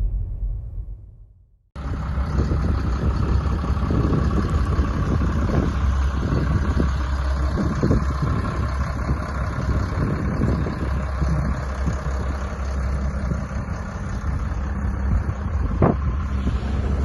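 Caterpillar D5C XL bulldozer's diesel engine running steadily, starting abruptly after a short fade of music, with a deep low hum and scattered light knocks and a sharp click near the end.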